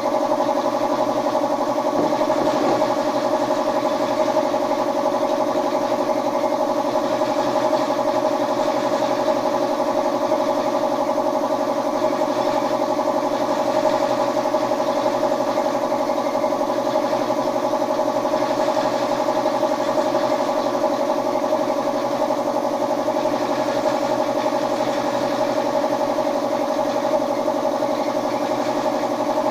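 A machine motor running with a steady, unchanging hum.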